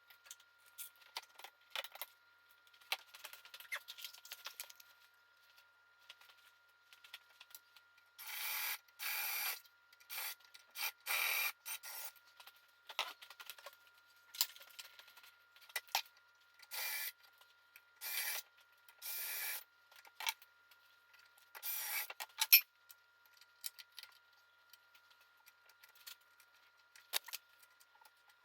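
Scissors cutting oil pan gasket sheet in about a dozen short rasping strokes, each about half a second, with small clicks of handling between them.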